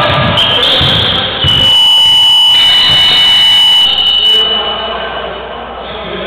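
Gym scoreboard buzzer sounding one long, steady, high tone for about two and a half seconds, starting about a second and a half in. Before it, a basketball bounces on the court.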